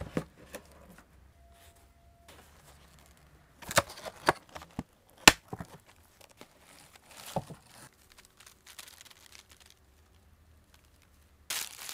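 Doll packaging handled by hand: a clear plastic wig box and its wrapping crinkle and rustle, with a few sharp plastic clicks and taps around the middle and a louder crinkle near the end.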